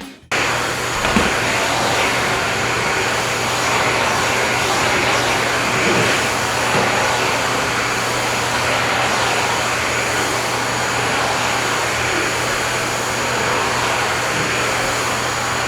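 American Sanders floor sanding machine running steadily on hardwood, a constant motor hum under a harsh abrasive whir.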